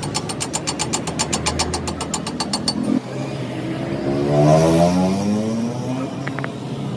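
Rapid, even clicking, about eight clicks a second, for nearly three seconds; then a motor vehicle engine revving up, its pitch rising over about two seconds.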